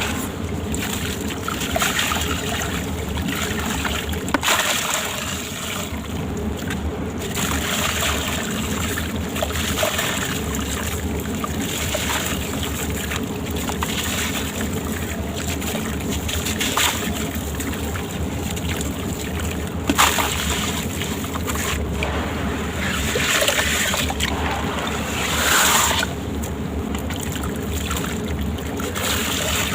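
Gritty sand-cement shapes crumbling and crunching in water, a continuous wet, grainy crackle with sloshing. Louder crunches come about 20 seconds in and again near 26 seconds.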